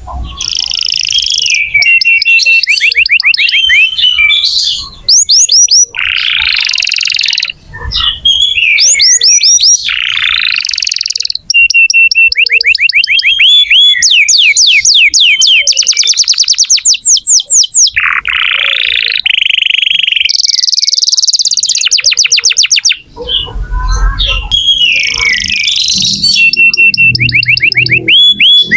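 Domestic canary in full, vigorous song: a long, loud run of fast trills, rolls and rapidly repeated high chirps, broken by a few brief pauses.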